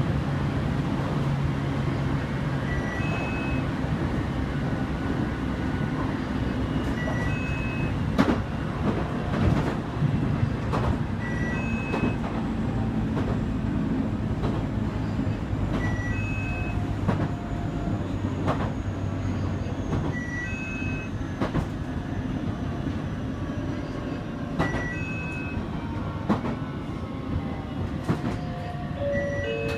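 JR Kyushu 815 series electric train running, heard from the front of the cab: a steady rumble of wheels on rail with scattered rail-joint clicks and a low motor hum. A short two-note electronic beep repeats about every four seconds, and near the end the IGBT inverter's tones step down in pitch as the train brakes into a station.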